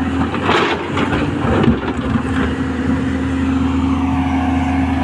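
Hydraulic excavator's diesel engine running steadily, with a few short knocks in the first couple of seconds.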